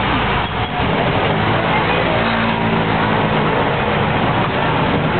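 Running noise of a tourist road train heard from on board: a steady vehicle rumble, with a low steady hum standing out for about two seconds in the middle.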